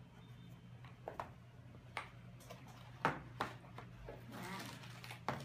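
Handling a stiff cardboard accessory box from laptop packaging: a few sharp taps and knocks as it is lifted and opened, then soft rustling of its contents. A low steady hum runs underneath.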